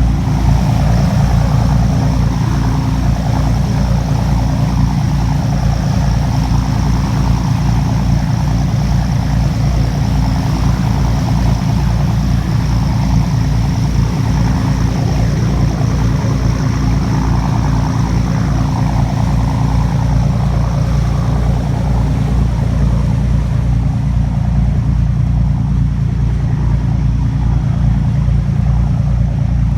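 The engine of a small passenger boat running steadily, heard on board: a low, rapid, even beat with a steady hum over it.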